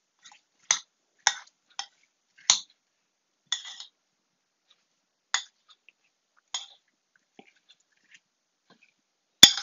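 Metal spoon clinking against a glass bowl while stirring diced apples: scattered short clinks, with a gap in the middle and one sharper, louder clink near the end.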